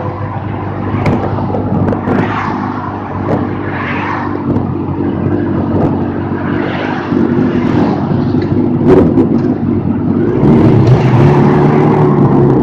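Sport motorcycle engine running under way, with wind rushing over the microphone in gusts. Near the end the engine note strengthens and rises as the bike accelerates.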